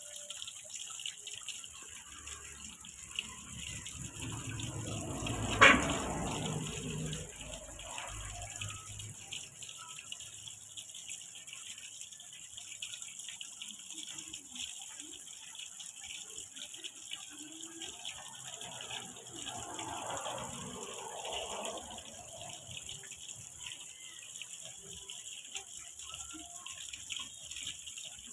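Garden pond fountain spraying water that falls onto the pond surface, a steady splashing hiss. Partway through the first quarter a single sharp knock stands out, the loudest sound, with a brief low rumble around it.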